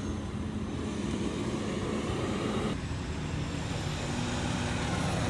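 Engine running steadily at idle, a continuous low droning hum with a faint held tone that shifts slightly about three seconds in.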